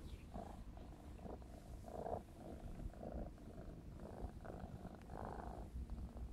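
4½-month-old Maine Coon kitten purring steadily while being stroked, a continuous low pulsing rumble.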